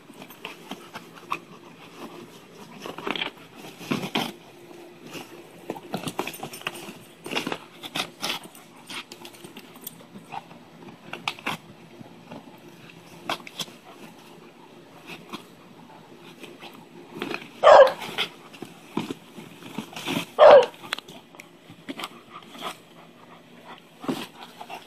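A Rottweiler tearing and chewing a cardboard box: many short bursts of cardboard ripping and crinkling, with two much louder short sounds a few seconds apart in the last third.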